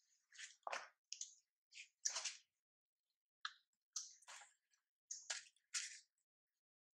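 Macaques handling their infants: a series of about ten short, faint rustling and scratching noises, irregularly spaced.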